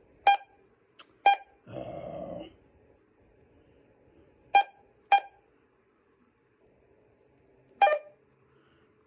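Keypad beeps of a handheld amateur radio transceiver as its buttons are pressed to set the repeater offset: five short, sharp beeps spread irregularly, with a short burst of rushing noise about two seconds in.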